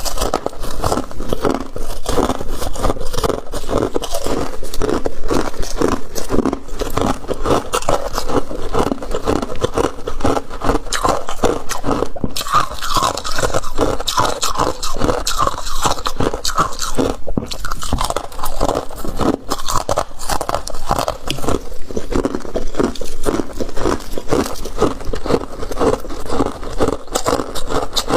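Flaky deep-freezer frost crunching and scraping in a dense, unbroken run of short crunches.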